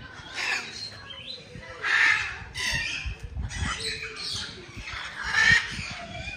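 Birds squawking: a string of harsh calls, the loudest about two seconds in and again near the end.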